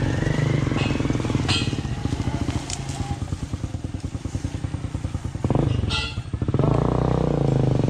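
Small motorcycle engine running close by, its pulsing note rising and falling with the throttle and getting louder about five and a half seconds in.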